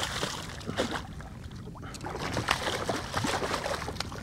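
Hooked redfish (red drum) thrashing at the surface right beside a kayak, splashing water in irregular bursts; the splashing dies down about a second in, then picks up again.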